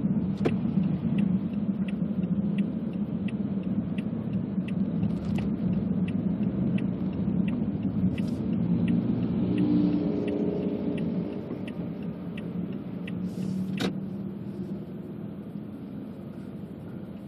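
Car on the move, heard from inside the cabin: a steady low road and engine rumble. Through most of it a turn-signal indicator ticks about one and a half times a second while the car turns, stopping a few seconds before the end, with one louder click just after. The rumble eases off toward the end.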